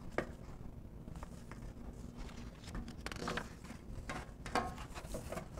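Faint rustling and light ticks of a picture book's paper page being handled and turned, over a faint steady low hum.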